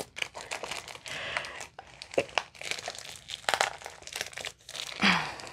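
Cardboard box and packaging crinkling and rustling in handling as a tightly wedged toolkit is pulled and worked out of a long cardboard kit box. There are irregular scrapes and clicks, with a louder burst near the end.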